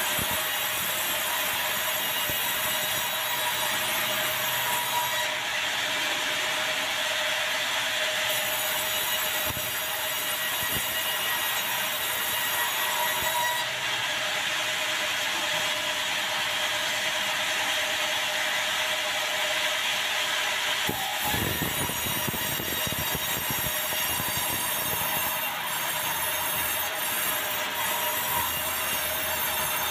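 A large sawmill headsaw running and cutting a dry, very hard bengkirai (yellow balau) log, a steady high whine with a hiss. About 21 seconds in, a lower rumbling joins it.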